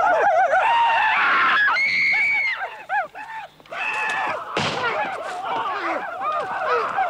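Several Huron warriors yelling wavering war whoops that overlap one another, loud and continuous, with one sharp bang like a shot about halfway through.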